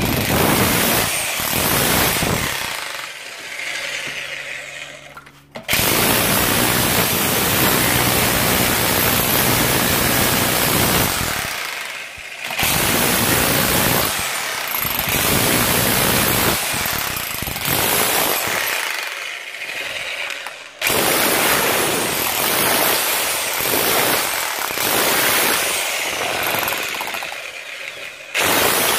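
Parkside PBH 1500 F6 SDS hammer drill in chisel mode, hammering a flat chisel into a plastered masonry wall and chipping it away. It runs in several long bursts with short breaks between them.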